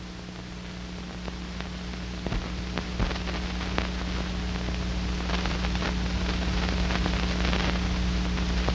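Old optical film soundtrack noise: steady mains hum and hiss with scattered crackles and pops, the hiss slowly growing louder.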